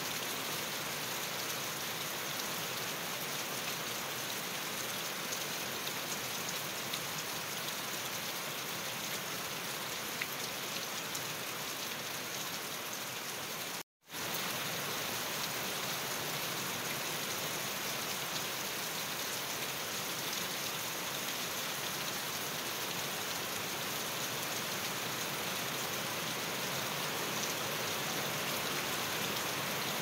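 Steady rain falling on grass and a leafy bush, an even hiss of many drops. The sound cuts out for an instant about halfway through.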